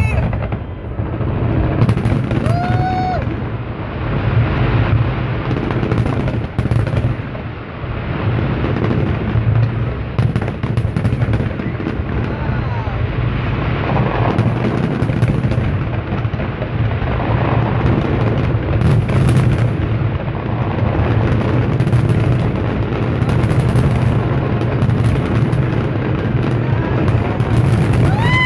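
Large fireworks display: a dense, continuous barrage of booms and crackling bursts over a deep rumble.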